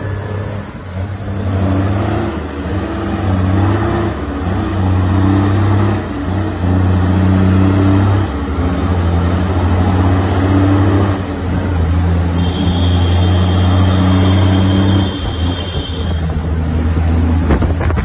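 Heavy truck engine pulling through traffic, its low drone rising and dropping in steps every second or two as it goes up through the gears.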